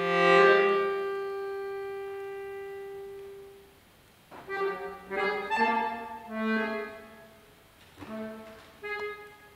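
Accordion duo playing contemporary classical music: a held chord swells and then slowly fades away over the first few seconds, followed by a brief silence and then short, separated chords with pauses between them.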